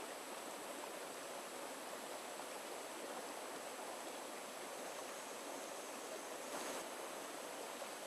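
Shallow rocky stream flowing over stones in a steady rush of water, with a brief louder rush near the end.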